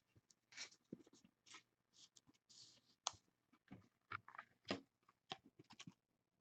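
Faint, irregular rustling, scraping and tapping of chrome trading cards being handled and slid through the hands.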